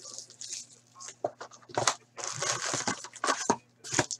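Cellophane shrink wrap crinkling and a cardboard hockey-card box being handled and opened. A series of sharp clicks, with a longer stretch of rustling about halfway through.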